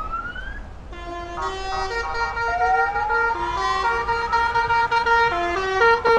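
Vans driving past with musical horns or loudspeakers playing a tune in held, stepping notes. A siren-like whoop rises slowly over the tune, and an earlier rising whoop ends about half a second in.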